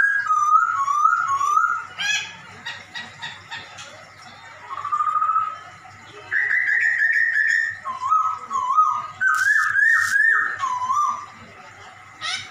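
A poksay Hongkong laughingthrush singing loud whistled phrases, each a quick run of repeated rising-and-falling notes, in several bouts with short pauses between them.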